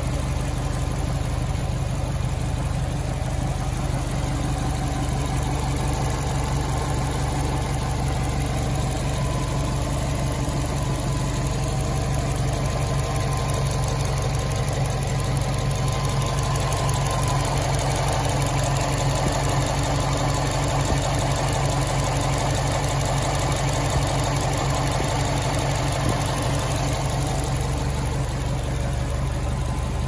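2006 Subaru STI's turbocharged 2.5-litre flat-four idling steadily. It runs smoothly on cylinder four, its misfire cured by replacing fouled spark plugs.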